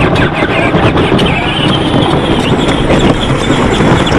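Kids' John Deere Gator ride-on toy rolling over a bumpy dirt trail: a steady rough rumble of its plastic wheels, with the load of cut logs knocking and rattling in its plastic bed.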